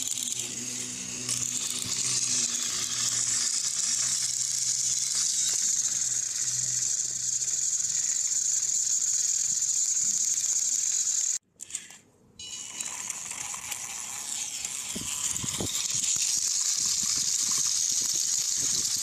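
Battery-powered plastic toy trains running on plastic track, their small motors and gears giving a steady high whir with a low hum under it. The sound cuts out briefly a little past halfway, then the whir carries on with a few light plastic knocks.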